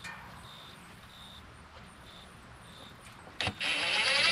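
Cordless drill/driver spinning up about three and a half seconds in and running with a rising whine, after a click. Before it, only faint background with a few short high chirps.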